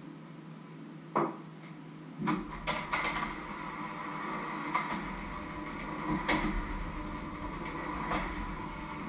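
Electric hand mixer switched on about two seconds in and running steadily in a steel bowl, with sharp clicks and knocks now and then as the beaters or utensils hit the bowl.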